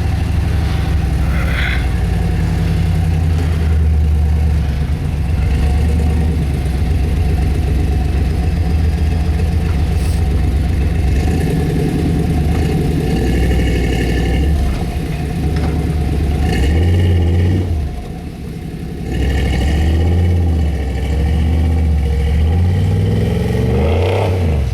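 Plow truck's engine working hard and revving as it pushes through deep snow. It eases off briefly about three-quarters of the way through, then picks up again.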